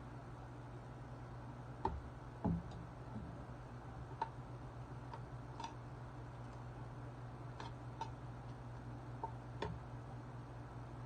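Eating sounds: irregular light clicks and taps, about ten of them, with a duller knock a little over two seconds in, over a steady low hum.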